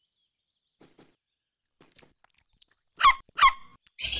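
A cartoon puppy barks twice in quick succession, high-pitched, about three seconds in, after a few faint soft taps. A loud hissing noise starts right at the end.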